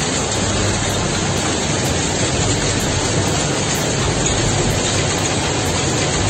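Hail and heavy rain pelting down together in a dense, steady hiss.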